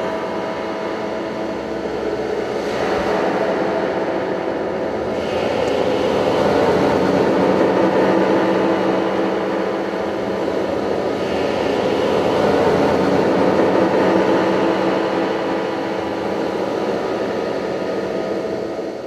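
A loud, droning rumble with several steady held tones underneath, played as the dance's sound score; it swells twice and starts to fade right at the end.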